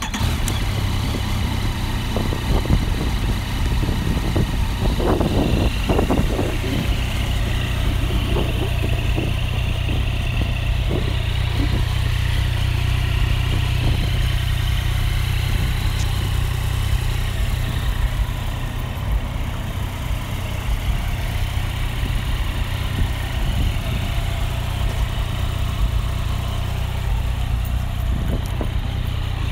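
Yamaha FZ-09's crossplane inline three-cylinder engine idling steadily.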